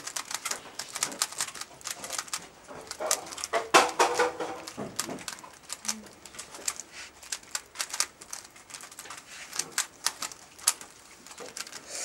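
Rubik's Cube being turned rapidly with one hand in a timed speedsolve: quick, irregular plastic clicks of the layers turning, several a second.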